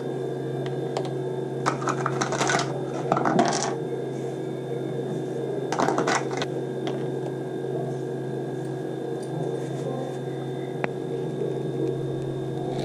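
Ice cubes clinking as they are handled and dropped onto a cup of thick mango juice, in two short bursts of clicks about four seconds apart, over a steady low hum.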